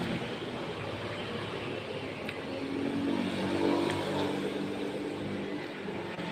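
A motor vehicle engine running steadily, its hum swelling a little in the middle, over a noisy background.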